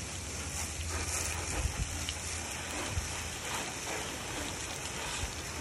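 Garden hose nozzle jetting water against the soapy side of a pickup truck, a steady hiss and splatter as the suds are rinsed off.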